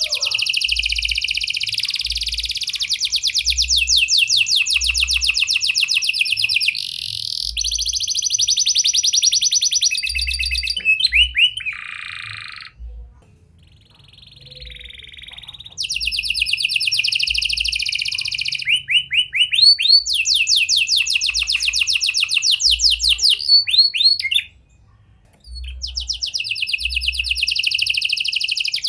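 Domestic canary singing a long, loud song of fast trills, rolls and rapidly repeated notes, with prenjak (prinia) and lovebird-style phrases worked in. Two short pauses, about halfway and near the end, break the song.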